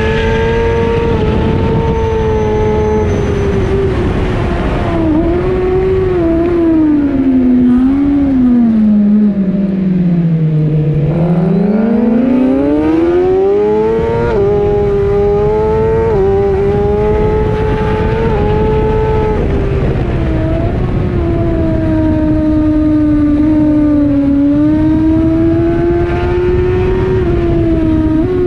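Suzuki GSX-R1000R inline-four engine running hard on track, heard from on board. The engine note falls steeply under braking to low revs about ten seconds in, then climbs back in steps through a series of upshifts and holds high revs, dipping briefly near the end.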